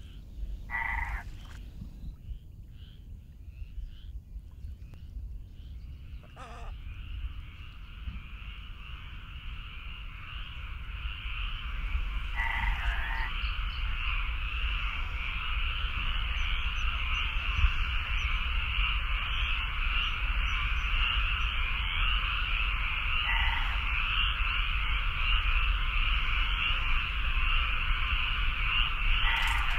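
A dense chorus of frogs calling, building up over the first several seconds and then holding steady. A few louder single calls stand out, roughly every ten seconds. A low, steady rumble runs underneath.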